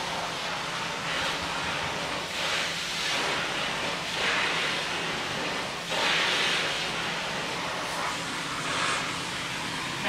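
Vacuum cleaner running steadily as its floor-brush nozzle is stroked over a dog's coat, the airflow hiss swelling and easing with each stroke, several times.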